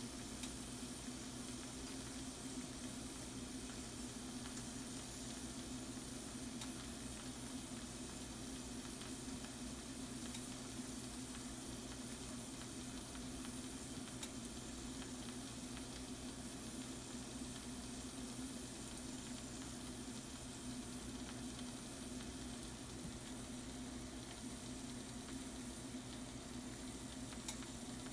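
Shrimp and sliced mushrooms sizzling steadily in their juices in a frying pan, with a few faint pops, over a steady low hum.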